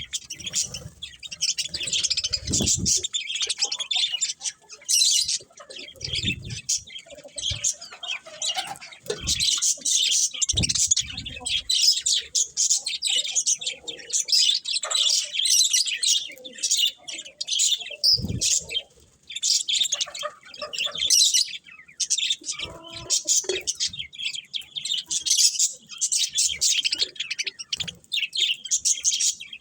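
Budgerigars chirping and warbling continuously, a dense run of rapid high chirps, with a few soft low bumps among them.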